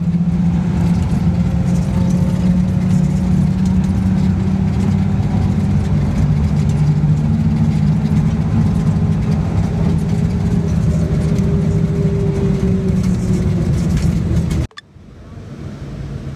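Steady engine and road noise heard inside a moving Volvo bus at highway speed, a loud, even low drone. Near the end it cuts off suddenly, giving way to quieter traffic noise.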